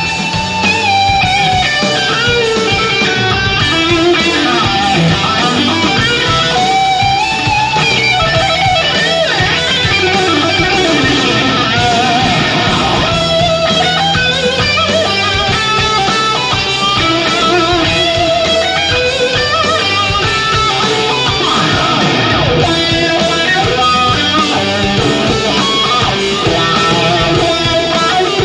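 Live instrumental rock: an electric guitar plays a lead line with bending, wavering notes over a steady low backing, loud throughout.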